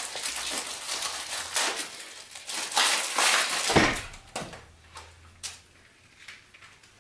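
Rustling and crinkling as the new moped inner tube is taken up and handled, loudest about three to four seconds in, then a few light knocks.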